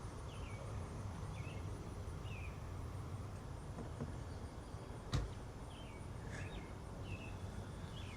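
Bird chirping: short high descending chirps repeating about once a second over a low steady background rumble, with one sharp click about five seconds in.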